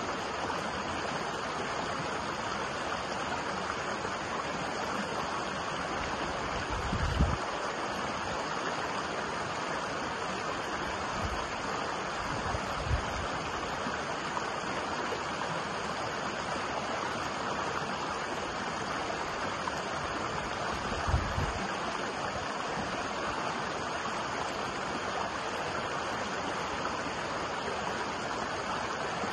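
Shallow stream rushing steadily over rocks in a broad, even splashing wash. A few brief low thumps break in, about a quarter, halfway and two-thirds of the way through.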